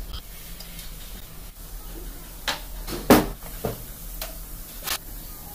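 Several short, sharp metal knocks and clinks, the loudest about three seconds in, as a crankshaft and bearing parts are handled and set into a bare engine crankcase. A low steady hum runs underneath.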